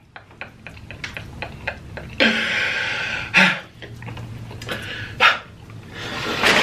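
A man's wheezing, breathy laughter in unpitched gasps, the longest about two seconds in and another building near the end, with a spoon clicking against a plate.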